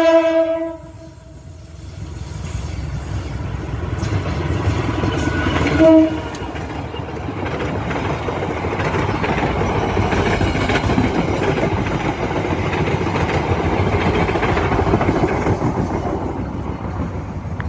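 Diesel locomotive horn on the Pandanwangi train: one blast ends just after the start and a shorter blast follows about six seconds in. Then the train runs past, its wheel-on-rail rumble and clatter building to a peak near the end.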